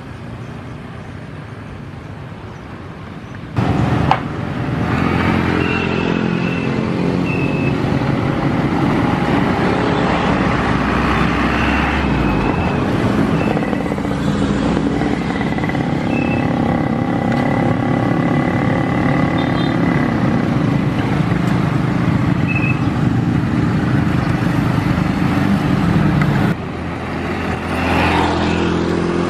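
Road traffic, mostly motor scooters and motorcycles with some larger vehicles, engines running as they pass close by. The sound steps up suddenly about three and a half seconds in and drops back near the end.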